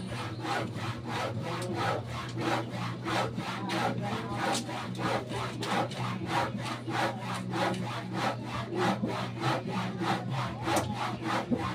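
Hand saw cutting wood in steady back-and-forth strokes, about three strokes a second.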